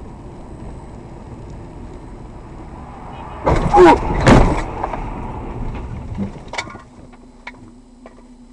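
Car cabin road noise, then the car crashes into plastic road barriers: two loud impacts under a second apart, about three and a half seconds in. Clattering follows and dies away over a couple of seconds with a few sharp clicks, and a low steady hum remains once the car has stopped.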